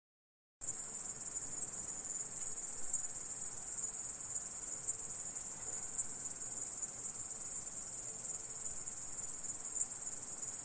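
Grasshopper stridulating: a dense, steady, high-pitched buzzing trill that starts abruptly about half a second in and runs on unbroken.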